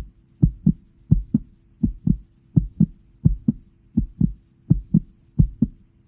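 Heartbeat sound effect: a steady double thump, lub-dub, repeating at about 85 beats a minute.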